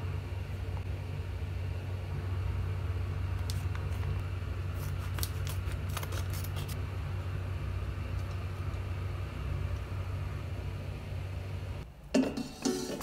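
Scissors snipping open a plastic vacuum pack, a few sharp clicks and crinkles over a steady low hum. Near the end, a few louder knocks.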